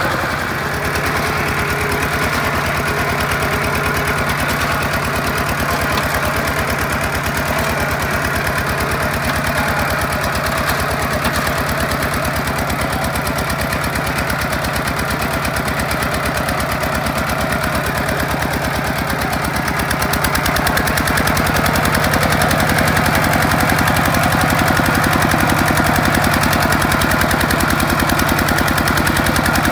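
The single-cylinder diesel engine of a Kubota two-wheel walking tractor running under load with a rapid, even chug as it pulls through mud and shallow water. It gets a little louder about two-thirds of the way through.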